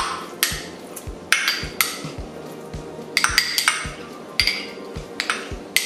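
Measuring spoon tapping and scraping against a small glass bowl of pumpkin purée: repeated sharp clinks in small clusters. Background music with a steady beat runs underneath.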